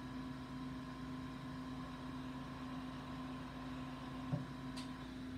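Steady mechanical hum with a faint higher tone, from equipment running in a glass lampworking studio. A small click about four seconds in.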